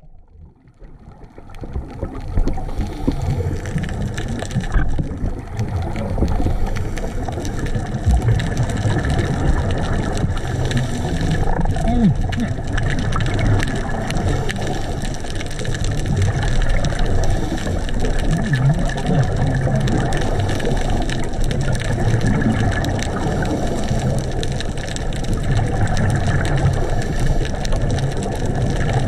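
Underwater reef ambience: a steady low rumble with constant fine crackling, fading in over the first two seconds.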